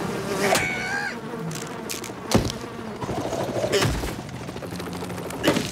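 Cartoon sound effects: a steady buzzing, broken by about four sharp hits spread through.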